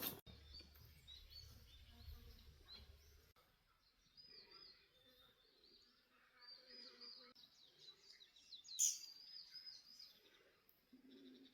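Faint birdsong, repeated short chirps, over quiet outdoor ambience. A single sharp click about nine seconds in.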